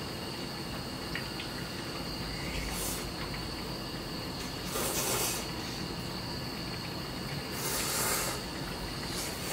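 Insects chirping steadily, with several short slurps of soup and noodles as people eat from bowls, the loudest about five and eight seconds in.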